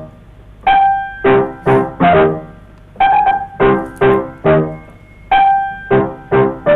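Freely improvised solo piano music: single notes and chords struck about twice a second, each ringing out and fading, with short pauses between phrases.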